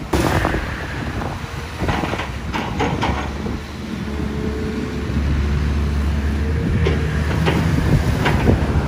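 XCMG XE215C excavator's diesel engine running steadily under hydraulic load as the boom and bucket dig, with several clanks and knocks from the bucket and linkage, the first a second in, a cluster about two to three seconds in and more near the end.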